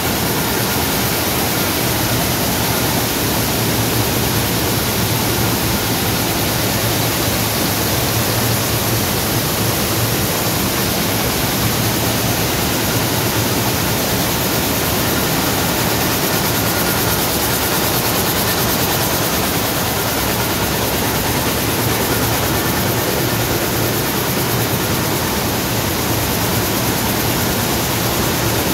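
Weaving looms running together in a weaving shed: a loud, steady, even din with no pauses or changes.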